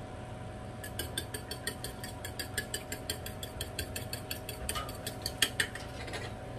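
A fork beating egg in a ceramic bowl: quick, even clicks of the tines against the bowl, about six a second, starting about a second in.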